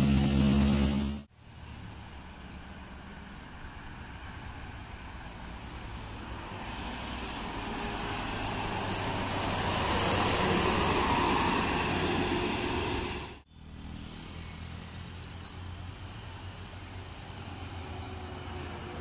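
Diesel intercity coaches: for about a second a coach's engine idles with a steady note, then it cuts abruptly to a coach driving past close by, its engine and tyre noise building to a peak. A second abrupt cut leaves a quieter, steady low engine hum as another coach approaches.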